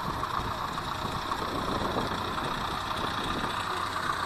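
A parked utility truck's engine idling, heard over wind rumble on the microphone of a moving bicycle.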